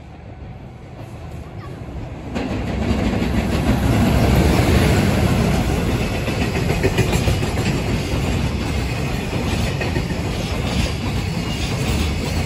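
A train approaching and passing close by, its wheels running over the rails. It grows louder, jumps sharply about two seconds in, and stays loud.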